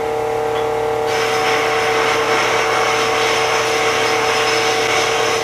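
Loud electric power tool running at a steady speed with a constant motor whine, a harsher rushing noise joining about a second in.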